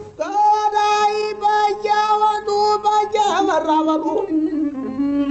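A single voice chanting Ethiopian fukera: it holds one long high note for about three seconds, then slides downward in wavering, broken phrases, over a fainter low held tone.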